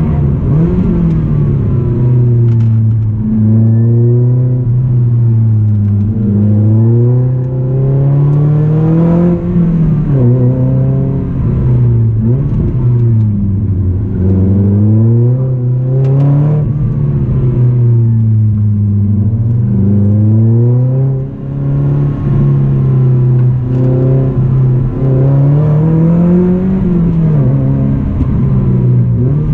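Lotus Elise S220's supercharged 1.8-litre four-cylinder engine, fitted with a Lotus Stage 3 exhaust, heard from inside the cabin while lapping a track. Its pitch climbs and drops again every few seconds as the driver accelerates and lifts.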